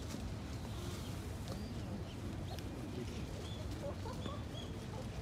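Scattered short chirps of small birds over a steady low background rumble.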